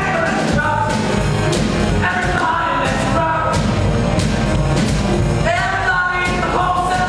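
Upbeat 1950s-style rock and roll song with singing over a steady drumbeat, accompanying a stage dance number.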